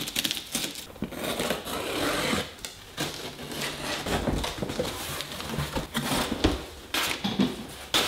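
Cardboard box being unpacked: a box cutter slicing through packing tape, then the flaps scraping and flexing as they are pulled open, with rustling packing paper. A couple of dull knocks of cardboard near the end.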